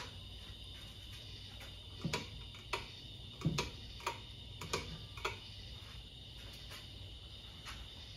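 Hampton Bay Roanoke ceiling fan running slowly with a faint steady hum, slowed by a failing capacitor. From about two seconds in, a cluster of irregular sharp ticks and clicks sounds for a few seconds.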